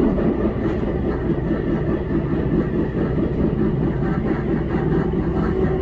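Keihan 5000 series electric train running, heard from inside the passenger car: a steady rumble of wheels and running gear with a steady hum over it.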